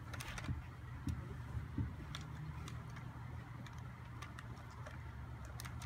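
Dog eating dry food off the ground: scattered light crunching clicks over a low steady rumble.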